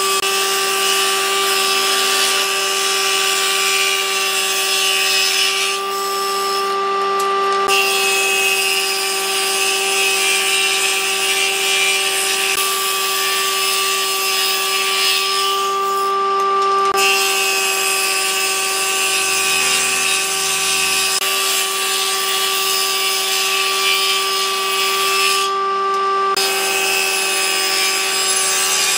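Combination jointer-planer running with a steady motor whine while softwood boards are fed across the spinning cutterhead. Each long cutting pass adds a dense high hiss, which breaks off briefly three times, about 6, 16 and 25 seconds in, between passes while the motor keeps running.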